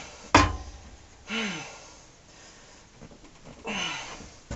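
A sharp knock just after the start, then a man's breathy sighs: a short out-breath with a falling voice about a second in, and another near the end.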